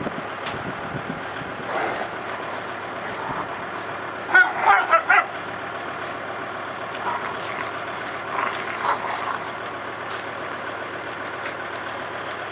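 Kubota tractor's diesel engine idling steadily. A brief loud burst of several quick sounds comes about four seconds in.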